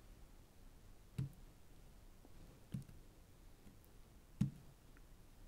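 Three small clicks as fingernails pick at a warranty sticker on a laptop's SSD to peel it off, the last click the loudest.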